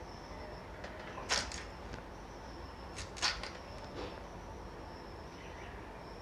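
A small knife cutting pieces of raw elephant foot yam (suran) held in the hand over a steel plate: a few short crisp cuts, the loudest about a second in and about three seconds in.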